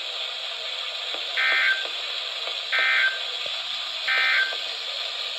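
Three short bursts of NOAA Weather Radio SAME digital data tones, each a raspy warble about a third of a second long and spaced a little over a second apart, over a steady radio hiss. They are the End of Message code that closes the emergency alert broadcast.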